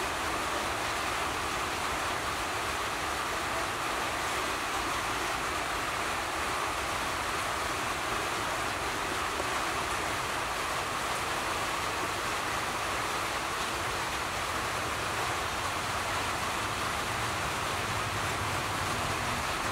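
A steady, even hiss with no distinct events: constant background noise such as a fan or the recording's own noise floor.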